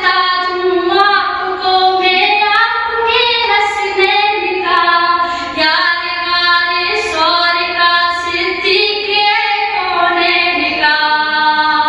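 A solo female voice reciting a naat, an Urdu devotional song, without instruments: long held notes with wavering ornamental turns, broken by a few short pauses for breath.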